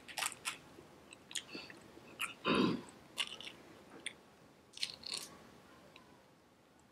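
Crab shell cracking and snapping as fingers break open a crab leg to pick out the meat: a scatter of sharp cracks and clicks over the first five seconds, with one longer, louder wet sound about two and a half seconds in.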